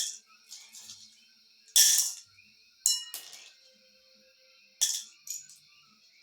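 Divination shells clinking and clattering as they are handled and cast, about five sharp clinks, a few with a brief ringing tone, over soft background music.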